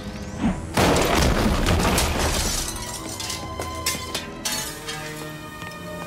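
Action music with a sudden shattering crash about a second in, the breaking noise trailing off over the next two seconds.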